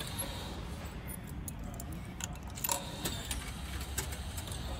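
Loose euro coins clinking in a hand: scattered light metallic clicks and jingles, with a faint low hum underneath.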